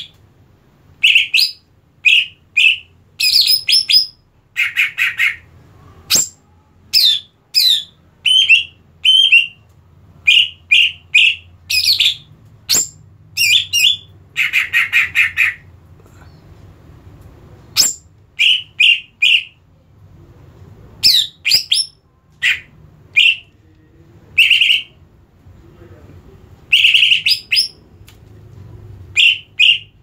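Caged male cucak ijo (greater green leafbird) singing in loud bursts: sharp chirps and whistled notes, with several harsh, buzzy trills about a second long. It is singing readily with a person's hand at the cage, which the keeper takes as the sign of a bird that has settled and is ready for competition.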